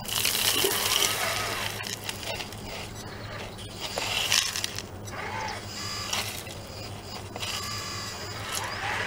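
Gravel pouring out of the tipped bucket of a radio-controlled model Caterpillar 966E wheel loader, in a loud rush right at the start and again about four seconds in. Underneath runs the steady hum and shifting whine of the model's motors.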